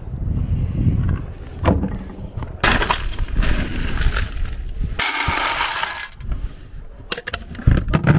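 Dry dog kibble scooped by hand from a plastic bin and poured into a stainless steel bowl: a dense rattling clatter of hard pellets, brightest about five seconds in, with a few loose clicks near the end.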